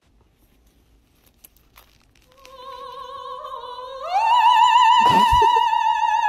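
Operatic singing voice holding one long note with wide vibrato: it comes in softly about two seconds in, leaps up about an octave near the four-second mark and swells, and holds on. A short knock sounds partway through the high note.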